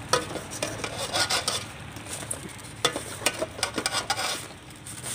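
Wire-mesh skimmer scraping and knocking against the inside of an aluminium stockpot as it scoops out boiled prawns. There are irregular scrapes with many sharp clicks, from metal on metal and the shells clattering.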